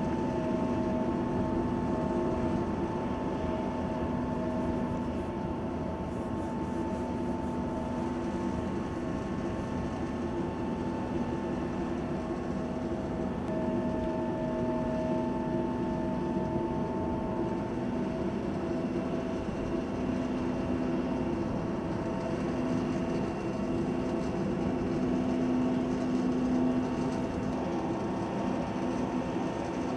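Steady drone of a jet airliner's engines, with several steady humming tones over an even rush of noise.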